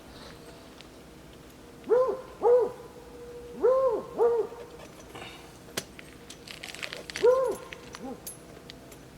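A dog whining in short, rising-and-falling cries: two pairs, then one more near the end. A sharp click and a brief rattle come just before the last cry.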